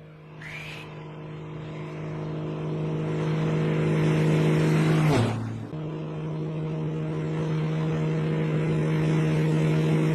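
Aircraft passing low and close overhead: a steady engine tone and rushing noise build up, and about five seconds in the pitch drops sharply as it goes past, then the sound builds again.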